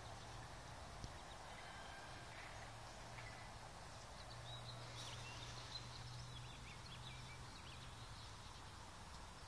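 Quiet outdoor ambience: faint bird chirps in the distance, mostly in the second half, over a low steady hum.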